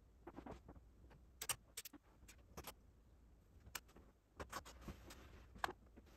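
Near silence broken by faint, irregular small clicks and light rustles, about eight or nine sharp ticks spread unevenly, over a low steady room hum.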